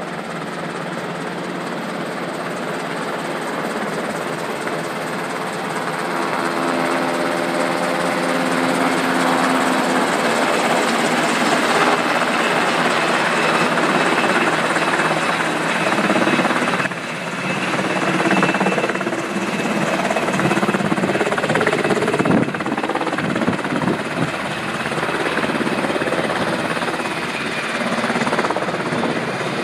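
Sikorsky UH-60 Black Hawk helicopter with its rotors and twin turboshaft engines running as it comes in, hovers low and touches down, growing steadily louder. A thin high whine runs over the rotor noise in the second half.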